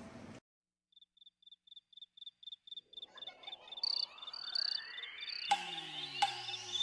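Produced music intro after a cut to silence: a high, steady-pitched electronic ticking about four times a second, growing denser. A rising sweep builds under it, and two hits with falling tones land near the end.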